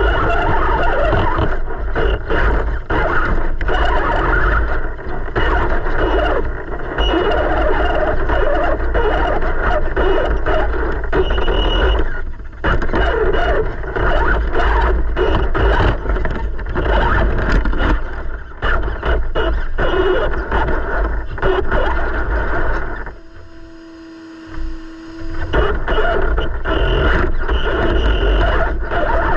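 Traxxas TRX4 RC crawler driving, heard through a GoPro mounted on its own body: a continuous mechanical whir from the motor and drivetrain, with many small knocks and rattles. About 23 seconds in it goes quiet for roughly two seconds, leaving only a faint steady hum, then starts up again.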